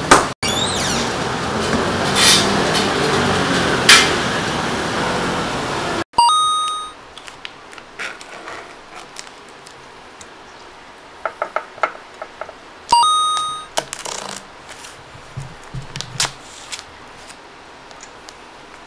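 A heavy stainless steel fridge door thuds shut, followed by a few metal clinks over steady kitchen noise. After a sudden drop to quiet, a bell-like ding sounds twice, with soft clicks of tofu and a plastic tray being handled in between.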